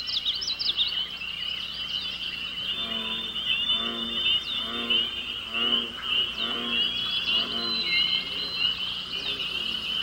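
Pond sounds: a dense, high chirping chorus with bird chirps above it. A frog croaks about six times, roughly once a second, from about three seconds in to eight.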